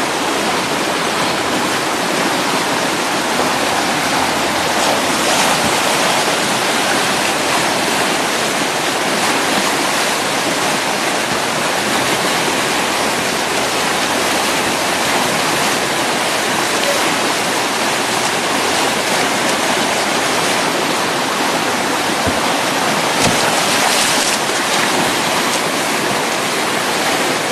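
Whitewater rapids rushing and churning in a steady, loud roar of water.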